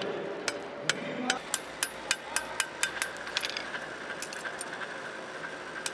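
Blacksmiths' hand hammers striking hot metal on anvils. There are scattered ringing blows, with a quick run of about four strikes a second in the middle.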